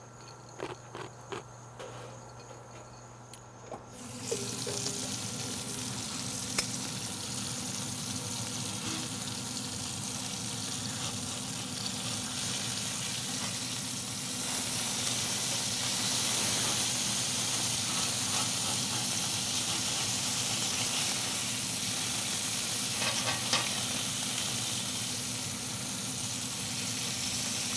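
Bacon sizzling steadily on a hot cast iron griddle, with a few clicks of metal tongs as the strips are moved. The sizzling comes in about four seconds in, after a quieter start.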